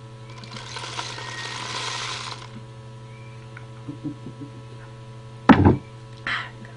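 Dried beans poured from a small glass into a cardboard tube, a grainy rattling hiss lasting about two seconds. A few light knocks follow, then a single loud thump near the end, over a steady mains hum.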